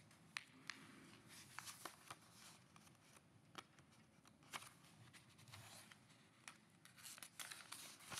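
Near silence: faint room tone with scattered small clicks and soft rustles.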